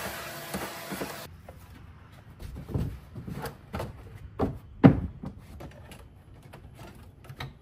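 A shop vacuum runs with a steady rushing noise and cuts off about a second in. It is followed by scattered knocks, thumps and rustling as the frunk liner is set back in place, the loudest thump just before the five-second mark.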